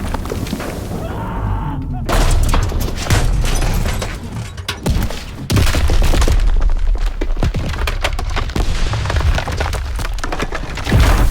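A train passing close by: a heavy, loud low rumble with many sharp clanks and bangs.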